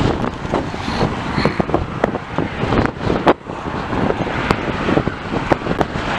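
Strong wind buffeting the microphone: a loud, steady low rumble with irregular crackles and pops.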